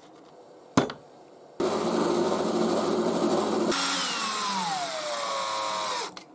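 A sharp click, then an electric power tool runs steadily for about two seconds before it is switched off and winds down, its whine falling in pitch until it stops.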